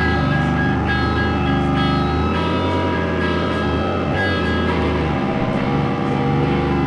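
Loud live noise music: dense, layered sustained tones over a steady low drone, with a few sharp clicks. The low drone drops out about five seconds in.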